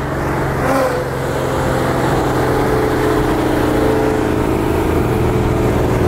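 Ford Mustang V8 engine and exhaust running at a steady cruise, with a low, even drone.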